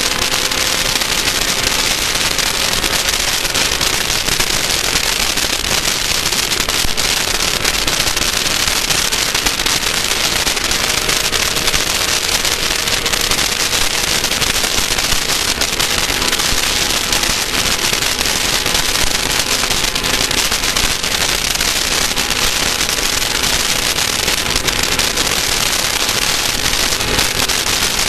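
Class 1600 off-road race car at speed, heard on board: its air-cooled VW engine runs steadily under a dense, loud crackling rattle.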